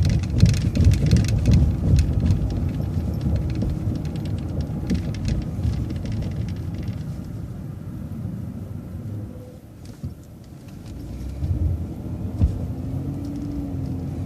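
City bus running along a street, heard from on board: a steady low rumble of engine and road with light rattles. It eases off about two-thirds of the way through, then picks up again with a rising engine and transmission whine as the bus pulls ahead.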